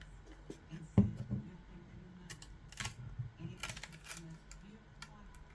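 Parts of a disassembled Bose SoundLink Color II speaker being handled. There is a sharp knock about a second in, then scattered light clicks and taps of the case and grille pieces.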